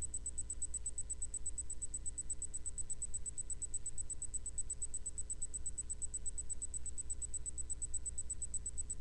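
CB radio receiving a strong signal with no voice on it, heard as a steady low hum with a faint high-pitched whine that pulses rapidly.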